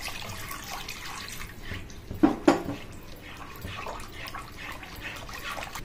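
Milk pouring in a thin stream into a metal kadhai of butter-and-flour sauce while a spatula stirs it, with a steady liquid trickle and slosh. A couple of louder clacks come a little over two seconds in.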